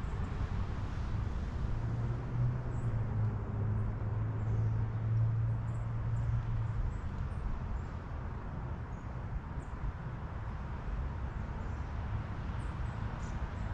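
Wind blowing steadily, with a deep rumble, and faint short high bird chirps scattered through it. A low steady hum sounds from about two seconds in until about seven seconds in.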